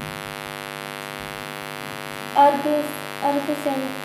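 Steady electrical mains hum, a stack of even tones, with a person's voice speaking a few words in the second half.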